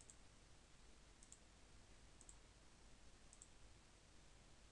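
Faint computer mouse clicks, about four of them roughly a second apart, each a quick pair of ticks, over near-silent room tone.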